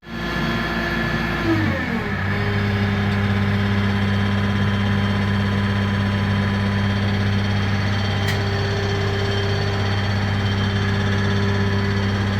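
Case 580N backhoe loader's diesel engine: its speed drops about two seconds in, then it idles steadily.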